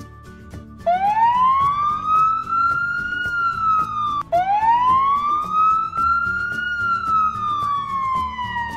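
Fire engine siren sound effect: two long wails, each rising in pitch and then falling, the first starting about a second in and the second just after four seconds. Light background music with a steady beat runs under it.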